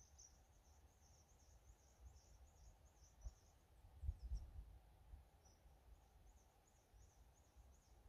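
Near silence: quiet outdoor ambience with faint high-pitched chirping, two or three chirps a second, pausing briefly just past the middle. Low wind rumble on the microphone, with two short gusts around the middle.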